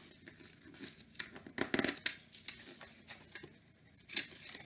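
Pages of a large hardcover picture book being handled and turned, the paper rustling and crinkling in irregular bursts, loudest a little past halfway and again near the end. The pages are sticking together.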